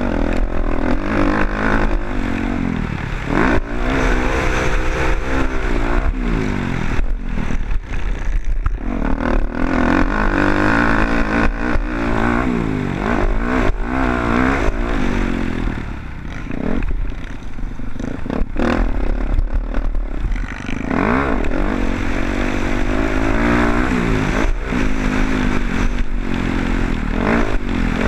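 Motocross dirt bike engine under race load, revving up and falling back again and again, with clatter and rattling.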